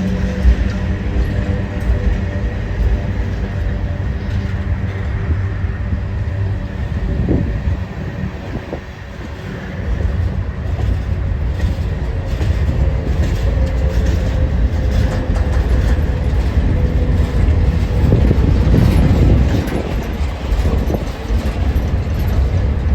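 Freight train of flatcars rolling slowly past at close range: a steady low rumble of the cars, with repeated clicking of wheels over the rail joints in the second half.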